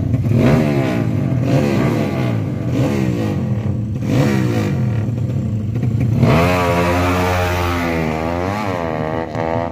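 Drag-racing motorcycle engines revving hard, their pitch climbing again and again. A louder engine comes in about six seconds in and holds high revs, with a short dip and rise near the end.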